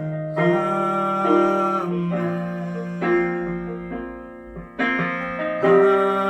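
Keyboard playing slow sustained chords, changing every second or so, with a brief lull just before a new chord comes in near the end.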